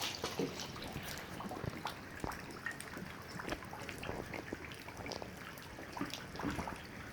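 Rain falling and dripping, a steady hiss with many irregular ticks of single drops landing.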